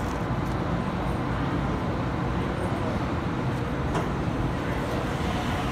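Steady low rumble of ambient noise on a railway station platform, with no distinct event standing out.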